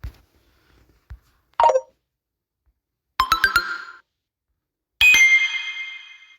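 Samsung Galaxy A21s phone speaker playing short ringtone previews one after another: a brief chime, then a quick run of four struck notes, then a bright chime that rings and fades.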